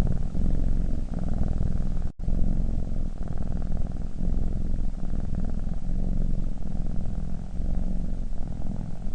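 Cat purring: a steady, low, continuous rumble, cut off for a split second about two seconds in.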